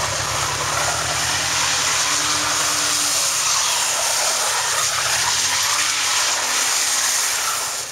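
BMW E36 3 Series engine held at high revs with the rear tyres spinning in a smoky burnout while the car drifts in circles. A steady, loud mix of engine and tyre noise.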